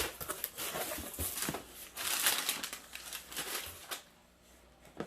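Packing material crinkling and rustling as hands dig through a shipping box, with many small crackles; it dies away near the end.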